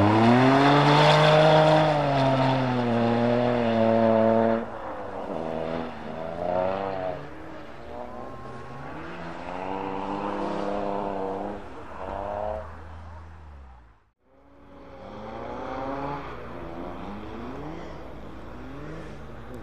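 Rally car engines running hard. One car is loud and close, its revs climbing and then held, and it cuts off abruptly about four and a half seconds in. After that, engines farther off rise and fall through the gears, with a brief silence about two-thirds of the way through.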